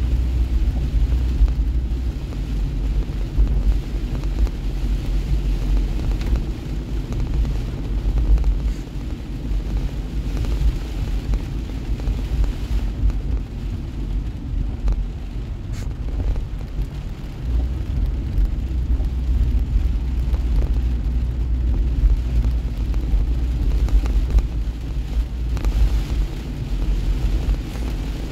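Inside a moving car in heavy rain: a steady low rumble of engine and tyres on the wet road, with the hiss of rain on the car. The rumble eases for a few seconds about halfway through.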